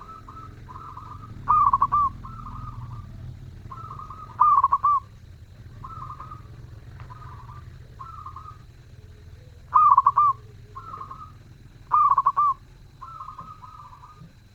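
Zebra dove (perkutut) cooing over and over, its song of short rolling coos; four louder phrases stand out, with softer trilling coos between them.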